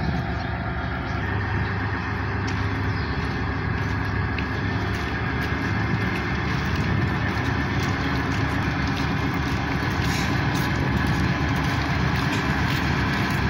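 Ship engines running with a steady low drone as the ferry manoeuvres close alongside the pier.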